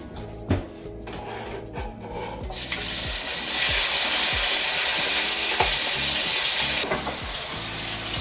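Chopped onion, scallion and seasoning sautéing in a hot pot. A few light clinks come first. About two and a half seconds in a frying sizzle swells up, stays loudest for a few seconds, then settles to a steady sizzle.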